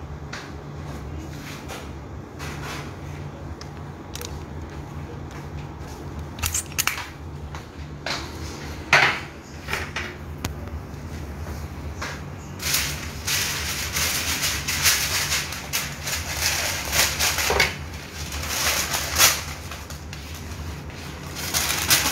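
A few knocks and clatters, then crinkling and rustling of a sheet of baking paper being handled, cut and laid over a metal baking tray. The rustling comes in repeated bursts through the second half.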